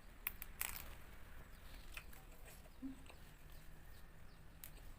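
Close-miked chewing of raw leafy greens, with a few short sharp clicks and smacks scattered through.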